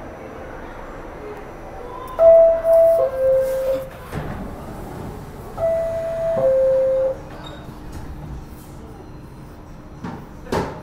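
New York subway car's door chime sounding twice, each time a high tone stepping down to a lower one: the signal that the doors are closing. A sharp knock comes near the end, over a steady low rumble in the station.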